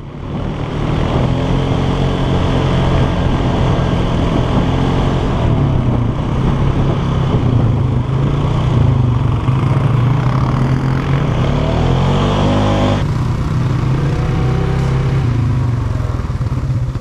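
ATV (four-wheeler) engine running under way while riding, its pitch rising as it speeds up about eleven to twelve seconds in. The sound changes abruptly about a second after that.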